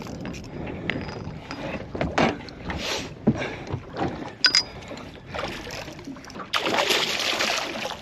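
Scattered knocks and clunks of gear against an aluminium boat during the fight with a hooked barramundi, then, about six and a half seconds in, a loud burst of splashing lasting over a second as the fish thrashes at the surface beside the boat.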